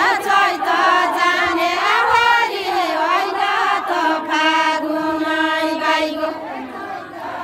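Group of women singing a Nepali deuda folk song together, in long drawn-out, chant-like lines with held notes.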